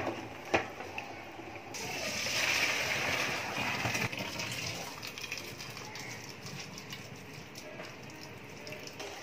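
Parboiled basmati rice being drained in a steel colander: two light metal knocks, then the cooking water gushes through for about two seconds, followed by a softer steady hiss with faint ticks.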